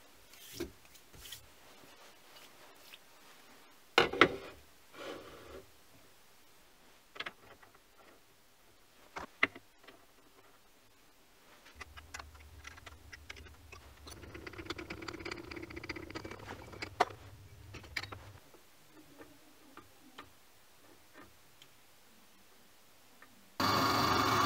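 Steel step clamps, bolts and a wrench clinking and knocking against a milling machine table as a part is clamped down, with a low hum in the middle. Near the end a small bench milling machine's spindle starts suddenly and runs loudly, its cutter going into the steel part.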